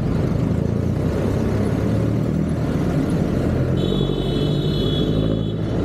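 A motor vehicle's engine rumbling steadily, with a brief high-pitched whine about two-thirds of the way through.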